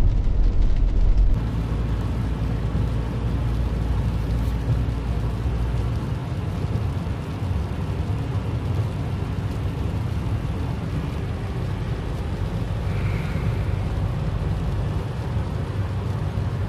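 Steady road and engine rumble inside an RV's cab, driving at highway speed, with tyre noise from the wet road. The deepest part of the rumble eases about six seconds in.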